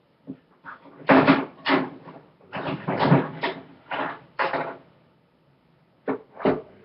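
Tools and household items being rummaged through in a container: irregular knocks, clunks and rattles in several bursts, with a short lull near the end.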